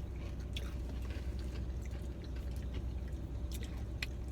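Someone chewing crispy fried chicken skin close to the microphone: a few faint, scattered crunches over a steady low hum.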